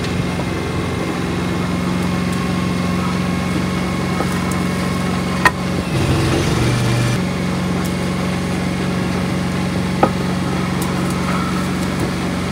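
An engine running steadily at a constant speed, with two sharp knocks, one about halfway through and one near the end.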